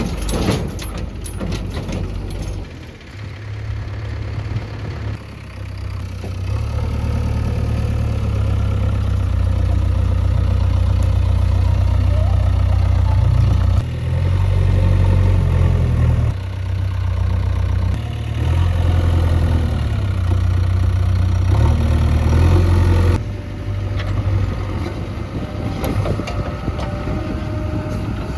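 Heavy diesel engine of farm or earth-moving machinery running, its low note rising and falling in steps as the load changes.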